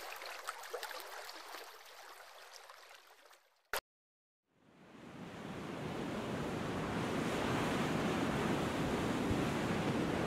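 Water sound effect: a trickling, gurgling flow fades out over the first three seconds. A single click about three and a half seconds in is followed by a second of silence. Then a steady, surf-like rushing water noise with a low rumble fades in and holds.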